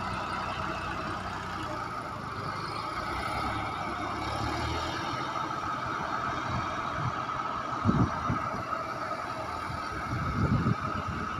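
Tractor-mounted front loader's engine running as it works a sand heap, its low rumble weakening about halfway through as it moves off, under a steady high whine. Two short, dull thumps near the end are the loudest sounds.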